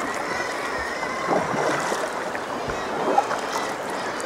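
Sea water sloshing and lapping around a sea kayak, a steady rush of small waves against the hull.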